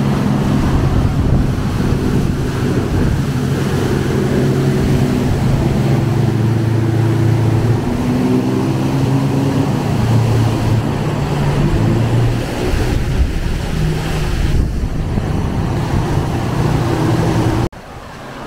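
Pilot boat's engines running close by, their pitch shifting a little as it comes in toward the ship, over rough wind noise. The sound cuts off abruptly near the end.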